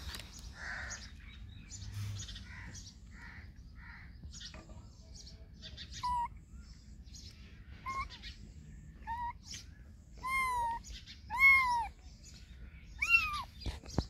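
A very young kitten mewing over and over in high, thin calls that rise and then fall. The calls start about halfway through and grow louder and closer together near the end.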